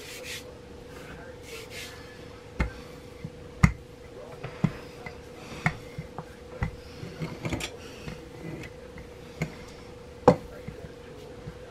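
Wooden rolling pin rolling out pie dough on a floured wooden cutting board, with a sharp wooden knock at the strokes about once a second and light rubbing between. A steady hum at one pitch runs underneath.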